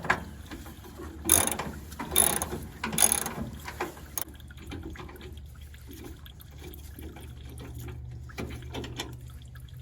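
Hand ratchet wrench clicking as a bolt is worked loose: three louder bursts of ratcheting in the first few seconds, then lighter, quicker clicks.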